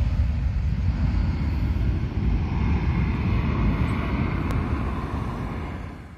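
Jet airliner's engines heard as it climbs away after takeoff: a steady low rumbling roar of engine noise that fades out near the end.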